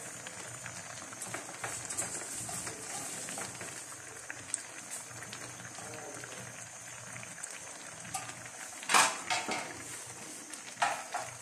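Metal spatula stirring bitter gourd (ampalaya) leaves in an aluminium wok, with small clicks and rustles throughout. A sharp scrape or knock of the spatula against the pan comes about nine seconds in, and a couple more near the end.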